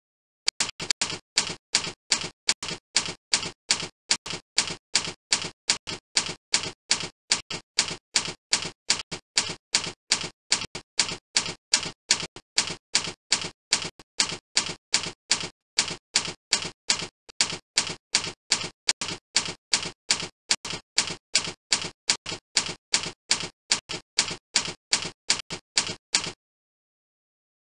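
Typewriter-style key-click sound effect for text typing onto the screen: a steady run of sharp clicks, about three a second, that stops about a second before the end.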